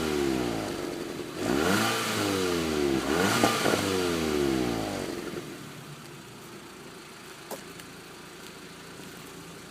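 Volkswagen Golf GTI Edition 35's turbocharged 2.0-litre four-cylinder revved twice, each blip of the throttle followed by the revs falling away, with a short crack at each blip. It then settles to a quieter, steady idle about halfway through.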